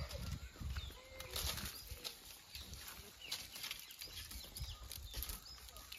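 Small birds chirping faintly and repeatedly, with scattered soft clicks and rustles and a low rumble underneath.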